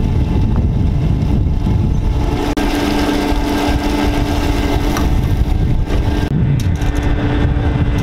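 Diesel fuel being pumped through a nozzle into a truck's fuel tank, with a steady hum joining in about two and a half seconds in. Under it, a heavy, uneven low rumble of wind on the microphone.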